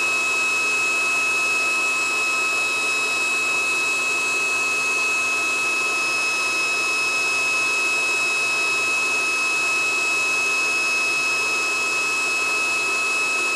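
Handheld induction heater running continuously while it heats a steel nut toward red hot: a steady fan noise with a constant high-pitched whine.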